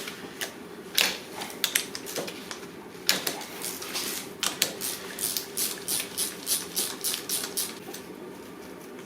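Socket ratchet with a 10 mm socket clicking as the clutch spring bolts of a Honda CBR600F4i are unscrewed, with scattered metal clicks and knocks at first, then a run of even clicks, about four a second, through the middle.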